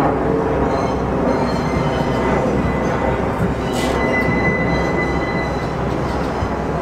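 NYC Subway Budd R32 cars rolling through the yard on a shunting move, wheels running on the rails with a steady rumble. A thin, high wheel squeal rides over it and grows stronger midway.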